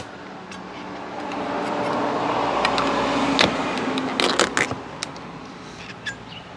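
A vehicle passing by, its sound swelling over a couple of seconds and fading away, with a few sharp knocks and clicks as a knife cuts into a cooked lobster tail on a plastic cutting board.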